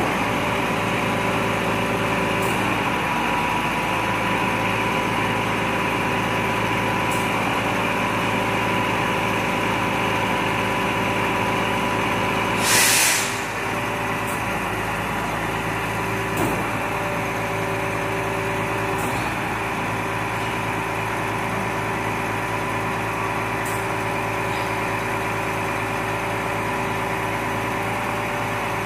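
Volvo FM 370 refuse truck's diesel engine idling steadily, with one short, loud hiss of released air from its air brakes about halfway through.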